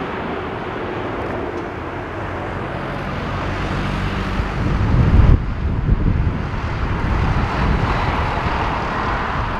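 Jet engines of a Boeing 777-300ER running as the airliner comes in low over the runway for a crosswind landing: a dense, steady roar that swells to about five seconds in, then changes abruptly. Gusts of strong wind rumble on the microphone throughout.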